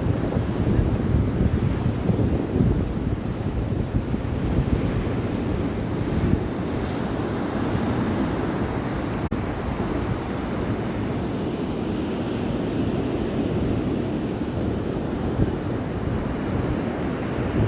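Wind buffeting the microphone over the steady wash of sea surf, a little gustier near the start and the end.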